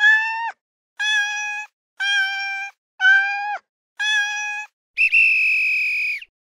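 Five short cat meows, one a second, marking the last five seconds of a countdown timer, then a longer, higher tone of just over a second signalling time is up.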